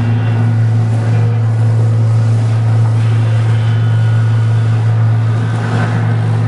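Amplified electric guitars of a sound installation, sounding through loudspeakers as cords strung to them are pulled: a loud, steady low electric drone, with fainter higher tones coming and going above it.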